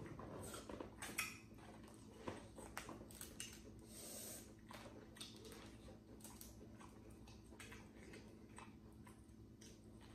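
Quiet eating sounds: corn on the cob being bitten and chewed and crawfish shells being peeled by hand, heard as scattered small clicks and smacks over a faint steady hum.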